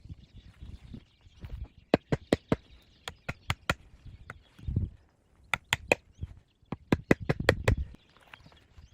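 Dry wood knocking and cracking in quick runs of sharp strikes, with duller low thuds between them, as branches are handled and broken.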